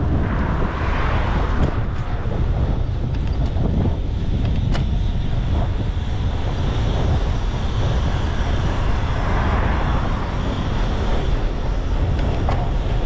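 Steady wind rumble on an action camera's microphone while riding along a road, mixed with road and traffic noise. A rushing hiss swells twice, near the start and about nine to ten seconds in.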